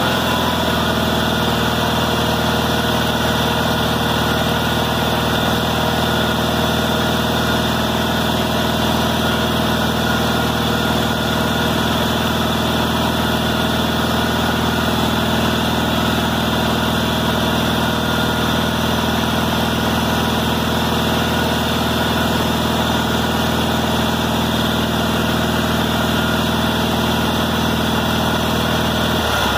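Kohler M18 horizontally opposed twin-cylinder engine in a Cub Cadet 1882 garden tractor, running at a steady speed.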